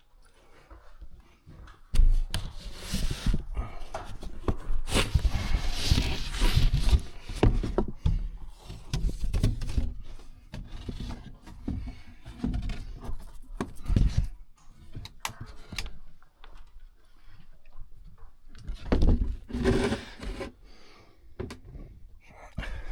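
Irregular knocks, thuds and rubbing from someone handling ductwork, with a busy stretch of clatter for several seconds after the start and another burst of thuds near the end.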